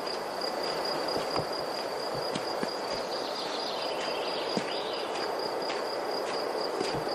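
Outdoor pine-wood ambience: a steady high-pitched insect trill over a continuous rustling hiss. In the second half come a walker's footsteps on a dirt path, a little under two steps a second.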